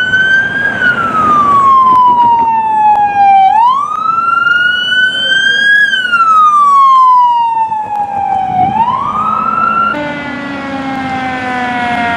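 Electronic siren on a fire department Chevrolet Tahoe sounding a slow wail, its pitch rising and falling twice. About ten seconds in, it gives way to a fire engine's siren whose pitch glides steadily downward as it winds down.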